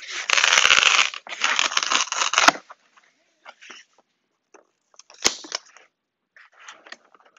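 Cardboard being ripped open along the length of a long roof-rack load-bar box, in two long tears over the first two and a half seconds. Then lighter rustling of the cardboard, with a sharp knock about five seconds in.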